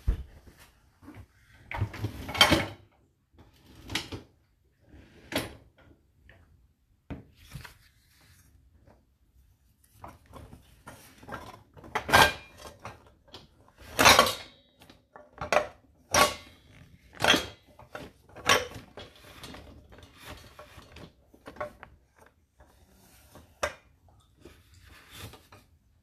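Irregular knocks and clatters of a dishwasher's racks and cutlery tray being handled. A few are loud, and one about fourteen seconds in has a short ring.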